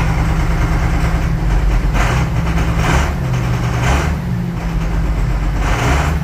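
Tractor diesel engine idling, heard from inside the cab, with a knock that recurs about once a second. The knock has not cleared after the fuel filters were changed.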